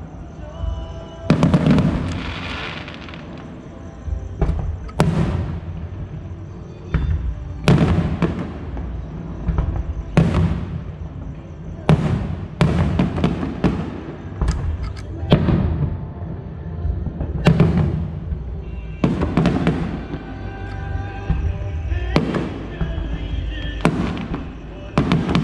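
Aerial firework shells bursting in a steady barrage, a sharp boom every one to two and a half seconds, each followed by a short rumbling tail.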